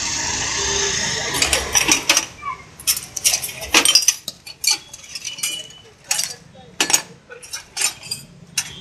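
A short steady hiss, then a run of sharp metallic clinks and clatters as steel hand tools and pliers knock against each other and against a metal tray of loose tools.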